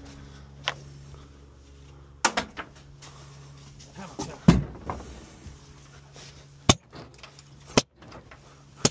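A sledgehammer smashing particleboard and an old wooden cabinet in a metal-sided trailer: a series of sharp knocks and bangs every second or so at an uneven pace, the loudest about halfway through. A low steady hum runs underneath, strongest in the first two seconds.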